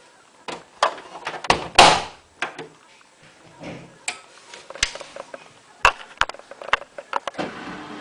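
Irregular clicks and knocks of objects being handled, with a louder thump about two seconds in.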